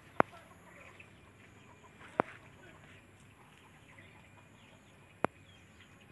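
Three short, sharp knocks or clicks, about two and three seconds apart, over a faint outdoor background.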